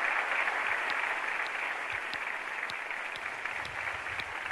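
Audience applauding: a dense, even clapping with a few separate claps standing out, easing off slightly.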